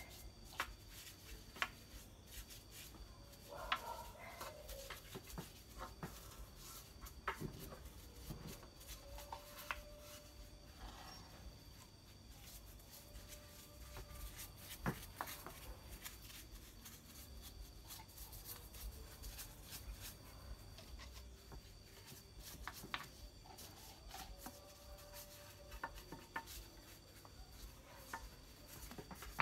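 Faint brushing and rubbing as wood polish is worked onto a carved wooden statue with a brush and by hand, with scattered small taps and clicks.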